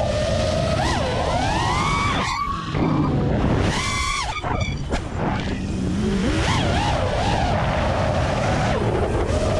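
FPV freestyle quadcopter's 1700KV brushless motors on a 6S battery, a pitched whine with propeller noise that rises and falls sharply with the throttle. It holds a steady mid pitch, rises twice to a high whine in the first two seconds, drops off briefly, then holds steady again and climbs once more near the end.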